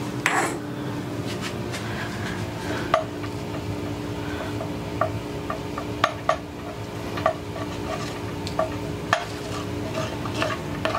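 Wooden spoon stirring sauce in a ceramic-coated skillet, scraping and knocking irregularly against the pan, over a steady low hum.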